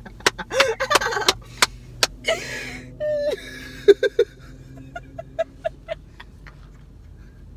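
Two people laughing and making playful vocal noises, with a quick run of sharp clicks in the first two seconds and a string of short, same-pitched hummed or sung notes later on.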